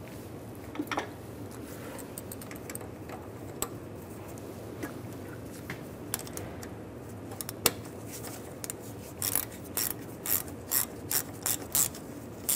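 Hand ratchet clicking as it runs in the bolt that holds the power steering pressure hose fitting to the steering rack. A few scattered clicks at first, then a steady run of louder clicks, about two a second, over the last few seconds.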